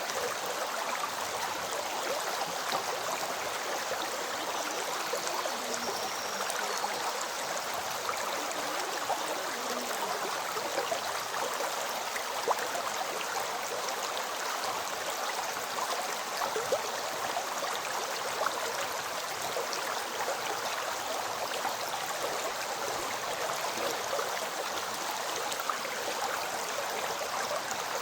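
River water flowing steadily, a continuous rushing and gurgling with a few brief louder moments.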